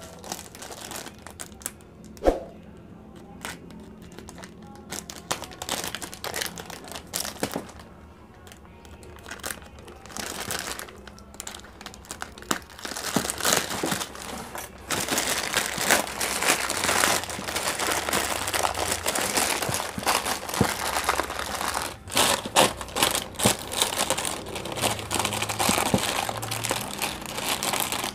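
Plastic courier mailer bag crinkling and rustling as hands handle it and pull at it to get it open: sparse rustles at first, turning louder and denser from about halfway through.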